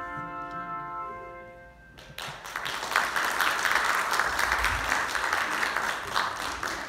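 Handbell choir's last chord ringing and fading away, followed about two seconds in by the congregation applauding.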